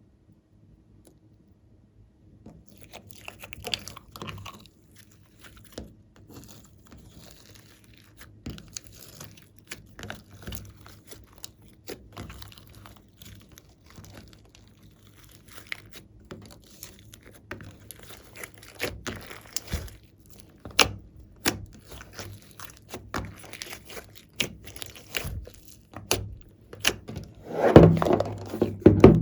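Glossy slime being kneaded and stretched by hand, making many irregular small clicks and pops of trapped air. It starts a couple of seconds in and is loudest and densest near the end.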